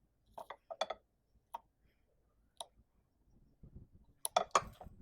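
Several sharp clicks and taps of small mower engine parts and hose fittings being handled and fitted by hand, irregularly spaced, with a quicker cluster of clicks near the end.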